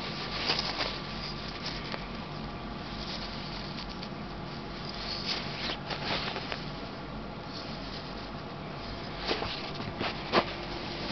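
Close-up handling noise: scattered soft rustles and clicks as a hand moves a doll's cloth dress and the camera, over a steady background hum. The sharpest click comes near the end.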